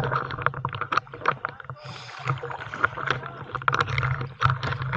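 Dive boat's engine running with a steady low hum, under a noisy wash and frequent short knocks and clatters.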